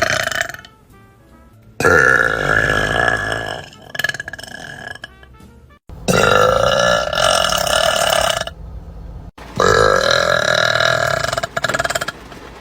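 A woman burping: three long, loud burps of about two seconds each, one after another with short pauses between.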